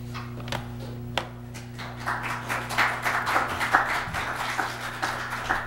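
Audience applauding: a few scattered claps at first, filling out into steady applause about two seconds in. A low electrical hum runs underneath.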